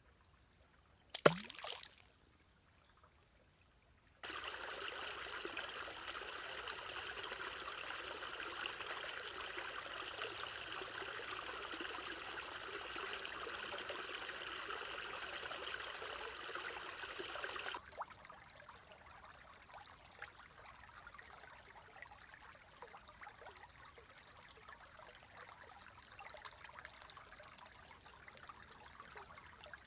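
Forest stream running water: first near silence with one sharp click about a second in, then from about four seconds a steady rush of flowing water that switches abruptly, about two-thirds through, to a quieter trickle.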